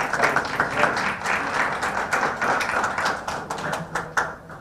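A few people applauding, with quick, irregular hand claps that stop abruptly near the end.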